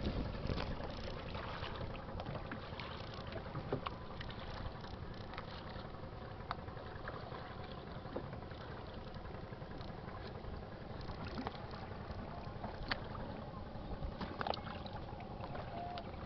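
Steady rush of open river water and breeze around a small boat, with a few faint knocks scattered through it.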